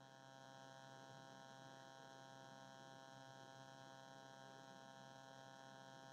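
Near silence with only a faint, steady electrical hum.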